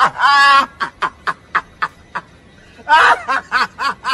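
A man laughing hard. There is a loud burst first, then rapid short "ha"s about four a second, and a second loud burst about three seconds in that again breaks into quick rhythmic "ha"s.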